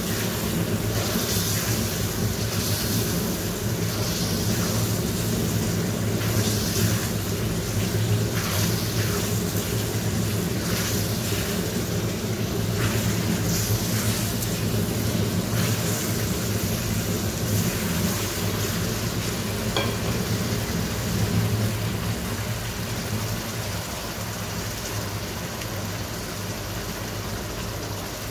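Fried chicken pieces sizzling in sauce in a wok while being stirred and turned with a silicone spatula, with repeated short scraping and scooping strokes, most frequent in the first half. A steady low hum runs underneath.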